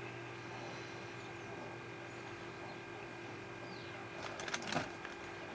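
Faint garden birds chirping a few short, falling notes over a steady low hum. About four and a half seconds in comes a brief flurry of sharp taps, the loudest sound here.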